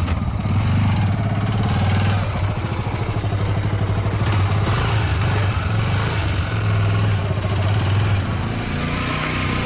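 Motorcycle engine running with a steady low, pulsing hum as it rides past, easing off about eight seconds in.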